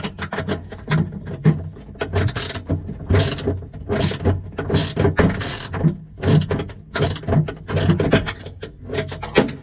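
Hand ratchet clicking in repeated short rasping strokes, with small metal clicks in between, as a fitting is tightened.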